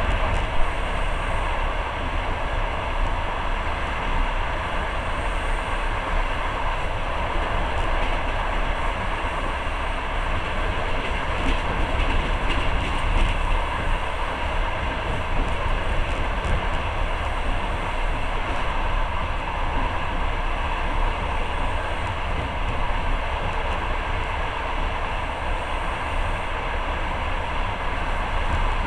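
Passenger train under way, the steady running noise of the carriage and its wheels on the rails heard from inside the car.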